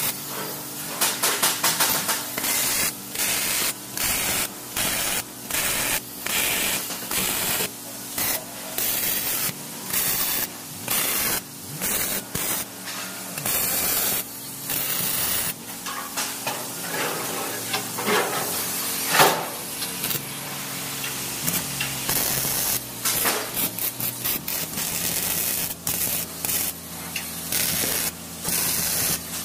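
MIG welding arc crackling and hissing in a run of short welds, the arc stopping and restarting every second or so, with one louder crack about two-thirds of the way through.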